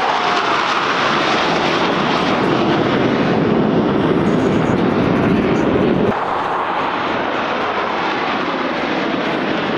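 Jet roar of a formation of F-16 Fighting Falcon fighters flying overhead: a loud, steady rushing noise that drops abruptly and loses its low end about six seconds in.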